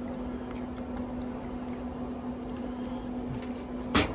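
Steady low hum of a running Traeger pellet grill, with a few faint ticks. About four seconds in there is one sharp wet slap as a hand presses onto the raw beef roast, which is wet with Worcestershire sauce.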